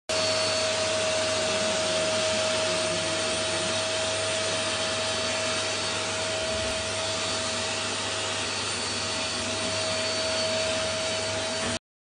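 Vacuum cleaner running steadily, a constant whine over rushing air, its hose sucking at a bathroom floor drain; it cuts off abruptly near the end.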